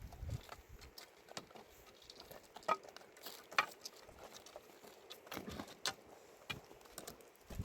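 Scattered light clicks and taps, irregular, with two sharper knocks about three and three and a half seconds in.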